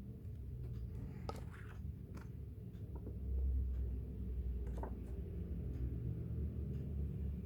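Merchandise packaging and paper items being handled: a few soft rustles and light clicks over a low steady rumble.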